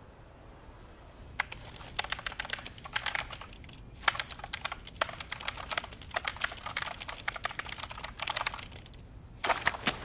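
Fast typing on a computer keyboard, in quick runs of key clicks starting about a second and a half in, with a short pause before a last burst near the end.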